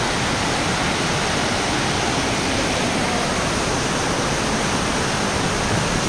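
Waterfall and rushing cascade of white water over boulders, a steady loud roar.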